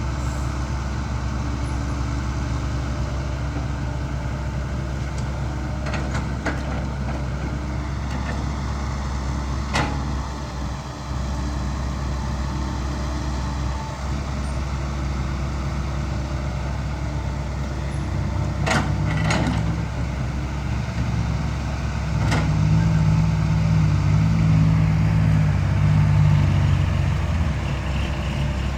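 Dump truck's diesel engine running steadily, then pulling harder and louder for several seconds in the second half. A few sharp knocks sound over it.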